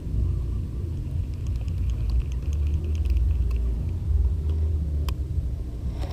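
A low, uneven rumble, with one sharp click about five seconds in.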